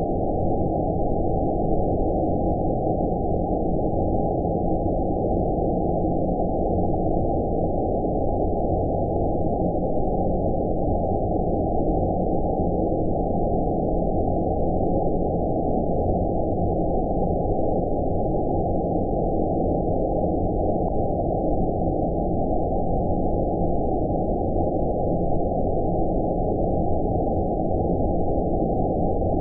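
Steady, deep, muffled 'outer space' white noise for sleep: an even rumbling hiss with all its highs cut away, unchanging throughout.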